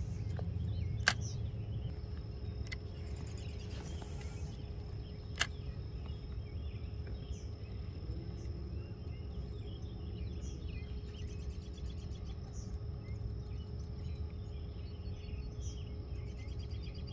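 Outdoor lakeside ambience: a steady low rumble and hiss with faint bird chirps. Two sharp clicks come about a second in and about five seconds in.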